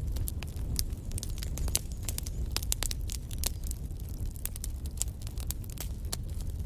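Wood fire crackling and popping, many irregular sharp snaps over a steady low rumble of the burning fire.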